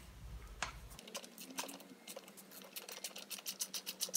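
A screw being driven into a scooter's CVT cover with a hand tool: scattered clicks that quicken to a steady run of about ten clicks a second near the end.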